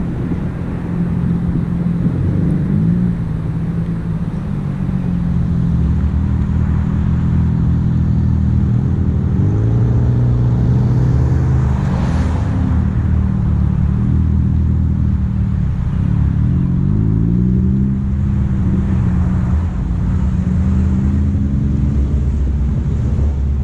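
Car engine and road noise while driving, the engine note rising and falling several times as the car speeds up and slows.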